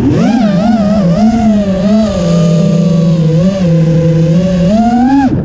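FPV drone's brushless motors and propellers whining, the pitch swinging up and down quickly with the throttle, then falling away abruptly at the very end.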